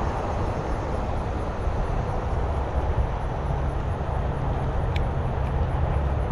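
Steady roar of passing highway traffic, an even rushing noise heaviest in the low end.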